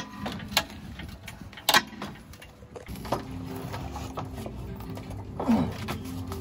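A few sharp knocks from tool work on a pickup, then background music with steady sustained tones that comes in about three seconds in.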